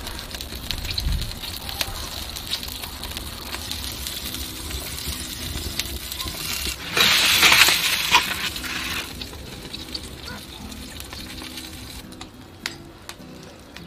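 Wood fire crackling in a wood-fired oven while a goose roasts in its pan, fat sizzling. About seven seconds in, a louder hiss rises for around two seconds, then fades.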